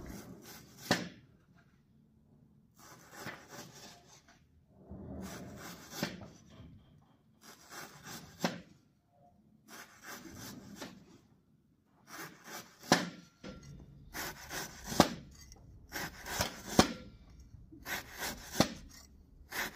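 Kitchen knife sawing back and forth through partly frozen pork on a wooden cutting board. There is a scraping stroke about every two seconds, and most end in a sharp knock of the blade on the board.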